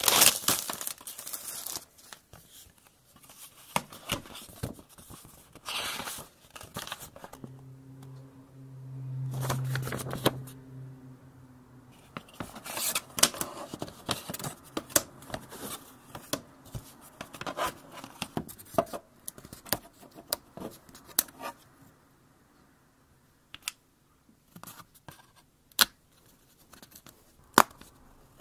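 Thin plywood puzzle sheets being handled: plastic film peeled and crinkled off them, the sheets rubbing and sliding against each other, and small clicks as laser-cut wooden pieces are pressed at. A low hum swells and fades for a few seconds about a third of the way in, and the handling thins out to scattered taps and clicks near the end.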